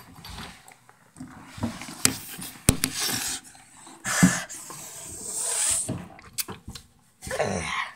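A small dog panting and snuffling close to the phone's microphone, among rustling and knocks from the phone being handled, with a short pitched vocal sound near the end.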